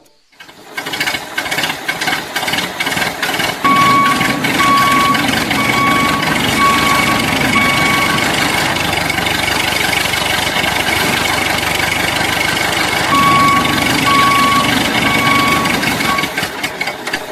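A small motor running steadily with a rattling buzz and a thin high whine, joined twice by a run of short beeps about one a second.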